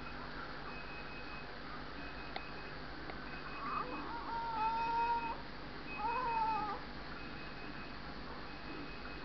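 Newborn baby crying in two short wails, the first about four seconds in and the second near six seconds. A faint electronic beep repeats about once a second throughout.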